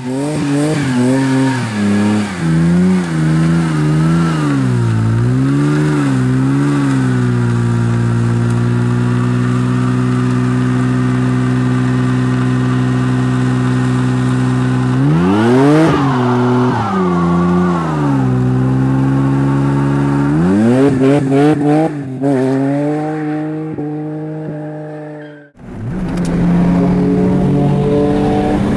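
BMW M50B28 stroker straight-six engine revving up and down, then held at steady revs for several seconds. It swings up and back down once more, settles again, breaks off briefly near the end and comes back.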